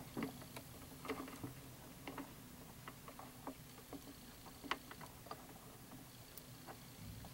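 Irregular light clicks and taps, a few each second, the sharpest about two-thirds of the way in, from a hand handling a plastic tub and a baby red-eared slider turtle, over a faint steady hum.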